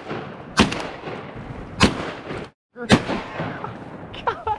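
Three shotgun shots fired at a duck in flight, about a second apart, each with a short echoing tail.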